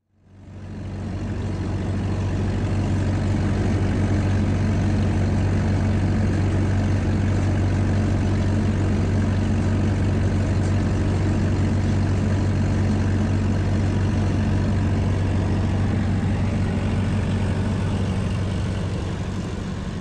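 Diesel engine of a trailer refrigeration unit running steadily with a deep, even hum. It comes up over the first couple of seconds and eases off slightly near the end.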